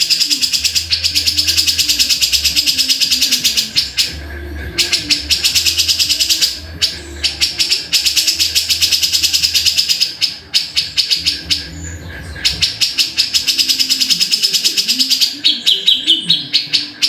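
A grey-cheeked bulbul (cucak jenggot) calls in long runs of rapid, evenly repeated high notes. The runs are broken by a few short pauses.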